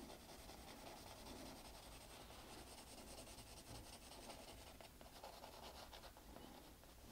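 Faint, steady scratching of a pencil shading on drawing paper.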